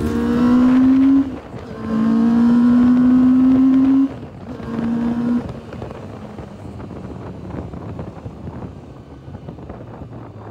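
Motorcycle engine accelerating through three gears, the note rising in each gear and dropping back at each shift, heard from the rider's seat. After about five seconds the throttle closes and the sound settles to a quieter, steady road-and-engine noise.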